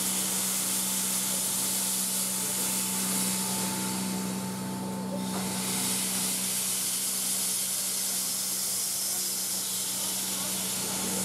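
Steam locomotive venting steam in a loud, steady hiss from around its cylinders as it moves slowly. The hiss breaks off briefly about five seconds in and then resumes, with a steady hum underneath.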